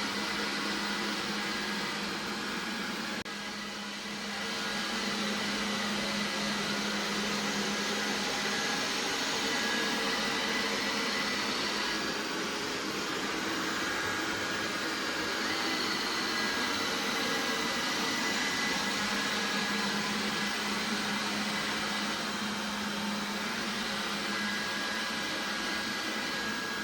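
Vacuum cleaner running steadily, a rushing motor noise with a low hum and a thin high whine. It dips briefly about three seconds in.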